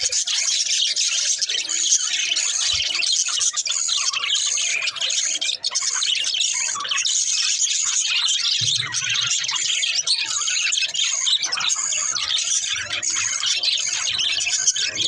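A flock of budgerigars chirping and chattering, many short overlapping chirps and squawks without a break.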